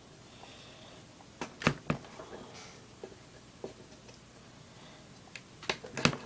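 Small sharp clicks and snips of scissors and a metal lighter being handled while a piece of the wick is cut off: a cluster of clicks about one and a half seconds in, scattered taps, then another cluster near the end.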